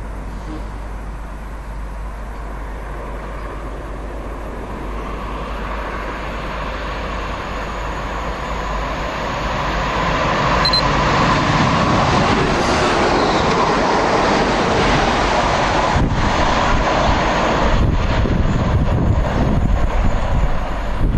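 London Midland Class 350 Desiro electric multiple unit approaching, its running noise growing louder from about six seconds in and then holding steady.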